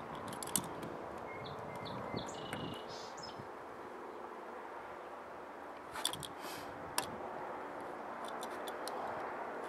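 Utility knife cutting through the plastic bed-rail cover over a pickup's stake pocket, with a few sharp clicks as the blade works through: one about half a second in and two around six and seven seconds in. Brief bird chirps are heard about two to three seconds in.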